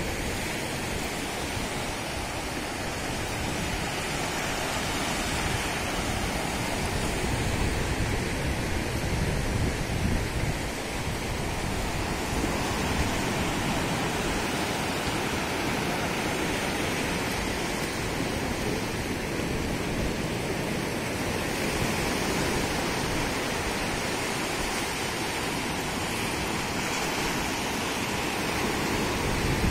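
Sea surf breaking and washing up a sandy beach in a steady rushing noise, with wind rumbling on the microphone.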